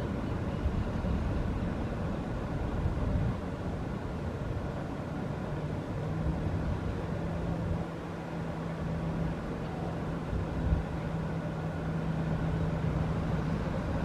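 Steady low rumble of outdoor background noise. A steady low hum joins about six seconds in and holds, and there is a single short knock near the end.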